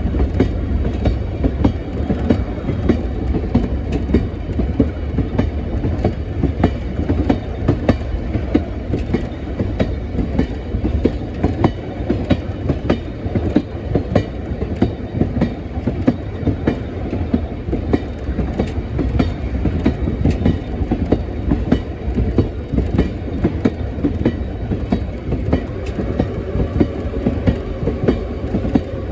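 Heritage railroad train running along the track: a steady rumble of rolling wheels with frequent clicking and knocking over the rail joints.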